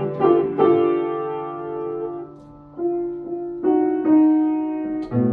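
Piano music: a few slow notes and chords struck and left to ring out.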